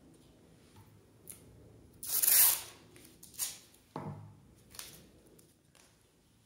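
Paper being handled on a table: a short, loud rustling scrape about two seconds in as a paper stencil is slid on black card, then a few softer brushes as it is pressed flat.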